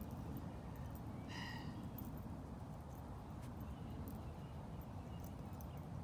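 Faint, steady low outdoor rumble, with one brief high-pitched call just over a second in and a few faint ticks.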